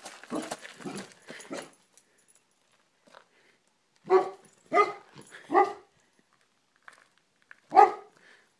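Golden retriever barking: three barks in quick succession about four seconds in, then one loud bark near the end.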